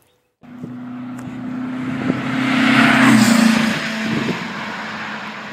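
A motor vehicle passing by: the engine note swells to its loudest about three seconds in, drops a little in pitch as it goes past, then fades.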